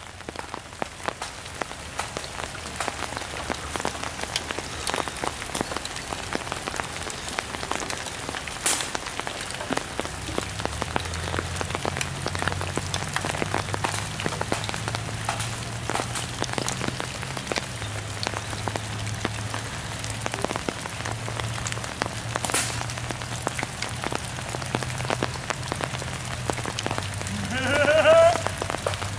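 Steady rain falling, with many small drops pattering close by. Near the end a person's voice rises in a single call or shout.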